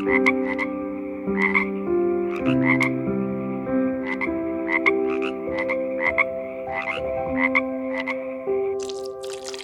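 Frog croaking repeatedly, short rasping calls every half second or so, over held steady tones that change pitch every second or so.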